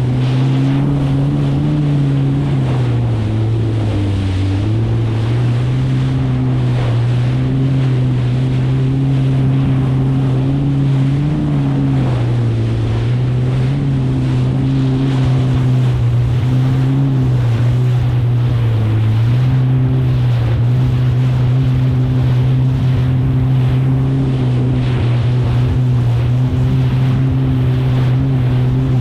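Kawasaki STX 160X jet ski's four-cylinder four-stroke engine running at a steady cruising speed, its pitch dipping briefly a few times as the throttle eases over the chop. Water rushes and splashes under the hull, and wind buffets the microphone.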